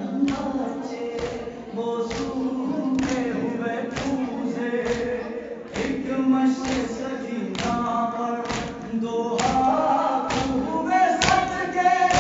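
Male mourners chanting an Urdu nauha together, with the sharp thump of hands striking chests in matam, about once a second in a steady rhythm.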